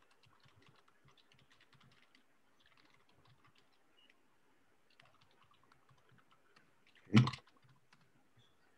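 Typing on a computer keyboard: a run of faint, quick keystrokes, with one loud, sharp thump about seven seconds in.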